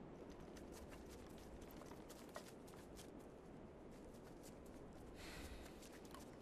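Very faint footsteps of soldiers advancing through snow, heard as scattered small crunches and clicks over a low rumble, with a short rush of hiss a little after five seconds in.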